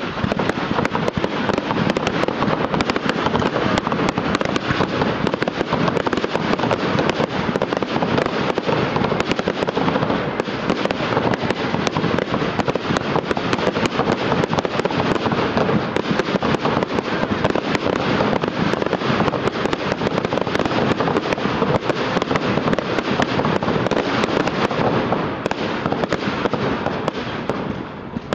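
Fireworks display: rockets launching and bursting in a dense, continuous barrage of rapid bangs and pops, easing off briefly near the end.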